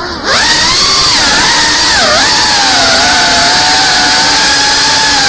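Motors and propellers of a GEPRC Cinelog 35, a small 3.5-inch ducted FPV cinewhoop drone, whining in flight. The pitch dips, then jumps up with the loudness as the motors speed up a quarter-second in. It dips briefly around two seconds in, then holds fairly steady.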